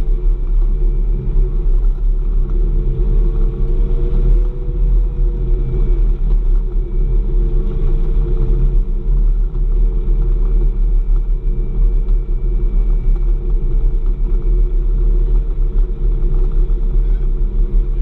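Snowmobile trail groomer's engine running steadily as it drives along the trail, heard from inside the cab: a constant low drone with a steady hum above it.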